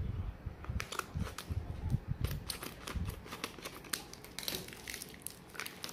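Plastic pouch of frozen rice soup crinkling and crackling as it is cut with scissors and handled, with a few low bumps in the first few seconds.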